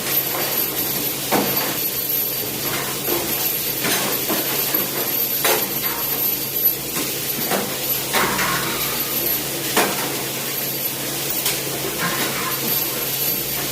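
Dishes and pots knocking and clattering now and then during hand washing, over a steady hiss.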